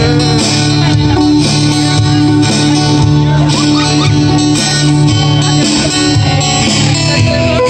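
Acoustic guitar strummed steadily in a live instrumental passage.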